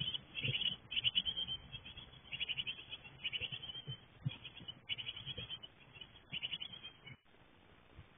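Nearly fledged Japanese tit nestlings begging in the nest box: rapid, buzzy chattering in repeated short bursts, with soft bumps as the chicks jostle. It cuts off abruptly about seven seconds in.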